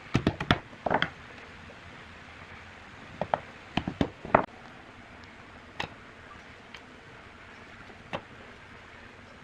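A wooden mallet knocks wooden slats into the slots of a wooden frame. There is a quick run of sharp knocks at the start, another one about a second in, and a second group from about three to four and a half seconds in. Two fainter knocks follow later.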